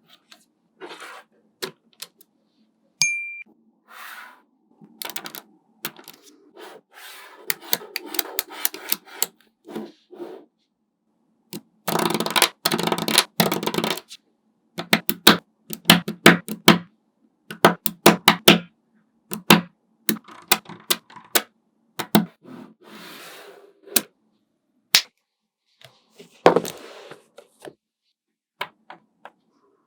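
Small magnetic balls clicking and clacking as they snap together, in irregular single clicks and quick rattling runs, with short stretches of rolling, rustling clatter between them.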